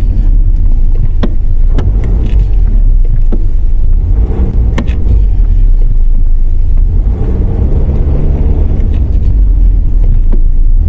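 A 2015 Audi A4 driving, a steady low rumble of engine and road, with several sharp clicks or knocks at irregular moments.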